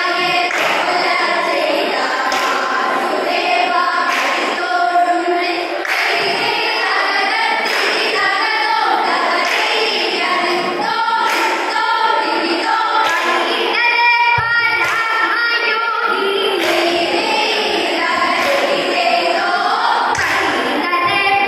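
A chorus of female voices singing a vanjippattu, the Kerala boat song, together in a steady rhythm, with regular sharp hand claps keeping the beat.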